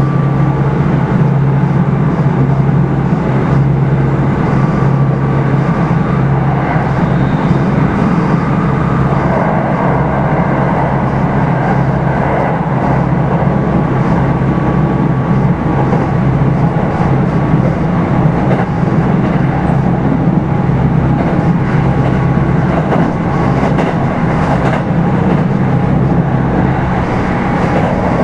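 Steady running noise of a Kintetsu 5211-series electric train heard inside motor car Mo 5261: wheels on rail and running gear as the train travels between stations, with no marked change in level.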